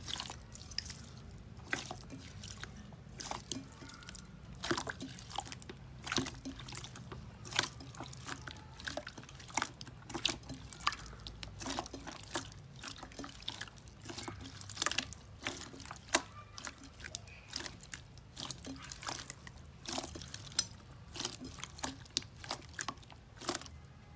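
Slime being squeezed and worked by hand, making many short wet clicks and pops at an uneven pace, a few each second.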